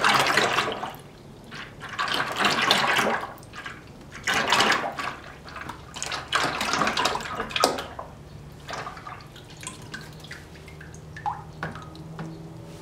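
Coolant poured from a plastic jug into a plastic bucket, splashing in four surges of about a second each. The pouring stops about eight seconds in, leaving only a few light clicks.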